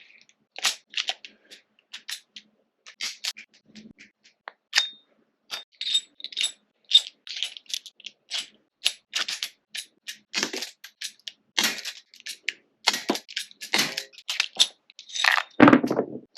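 Airsoft Chiappa Rhino revolver being handled: a quick run of short metallic clicks and clinks, with a louder, longer clatter near the end.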